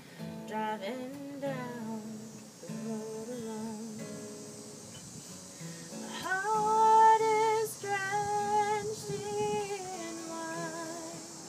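A woman singing long held notes with vibrato over acoustic guitar; the loudest sustained note comes a little past halfway.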